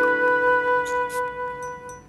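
Background music: a sustained chord on a flute-like or keyboard instrument, fading near the end.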